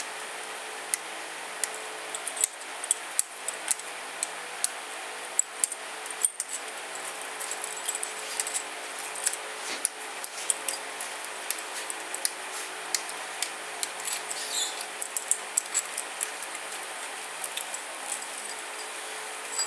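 Irregular light metallic clicks and clinks of a hand tool unscrewing the case bolts of a KTM RFS engine's aluminium crankcase, over a faint steady hum.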